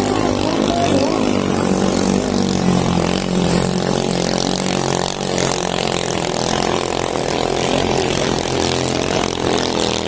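Engines of racing motorized bangka boats running hard, a loud, steady engine sound with several pitches overlapping.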